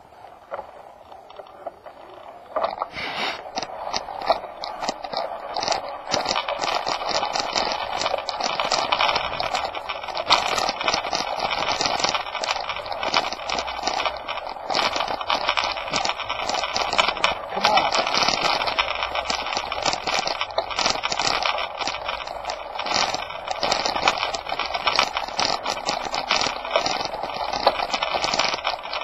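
Continuous rattling and crunching as a vehicle-mounted camera jolts along a rough gravel dirt lane. It starts up about two and a half seconds in and then stays dense and steady.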